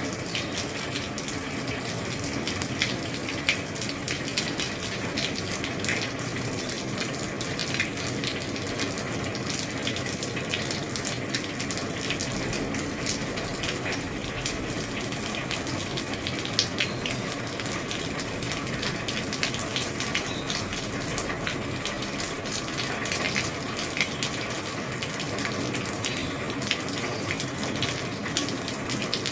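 Steady rain falling on an old roof: a continuous hiss of rain with many sharp drops ticking and pattering on the roof throughout.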